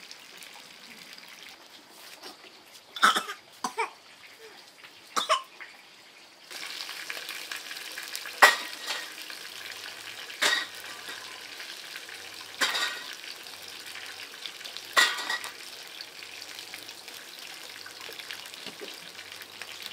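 Food frying in a pan with a steady sizzle that comes in about a third of the way through, and sharp knocks of cookware about every two seconds.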